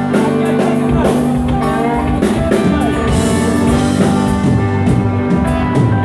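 Live band playing upbeat dance music, with electric guitars over a steady drum beat.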